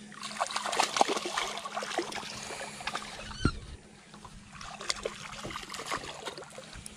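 A small hooked bass splashing at the water's surface beside a boat as it is reeled in, with clicking and rustling from the spinning reel and handling. A single sharper knock about three and a half seconds in.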